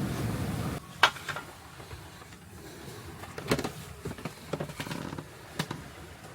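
Steady wind and water noise aboard a sailing yacht under way, cutting off abruptly under a second in. After that it is quieter, with a few sharp knocks and clicks, the loudest about a second in.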